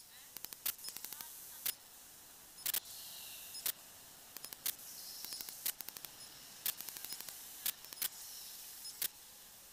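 Quiet, with faint sharp clicks about once a second, some coming in quick clusters.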